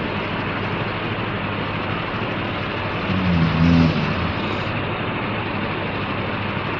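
A man snoring: one low snore about three seconds in, lasting under a second, over a steady background hiss.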